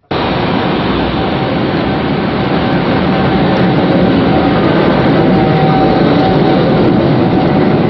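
Steady rumble and hiss of a vehicle in motion, cutting in abruptly, with a faint steady tone running through it.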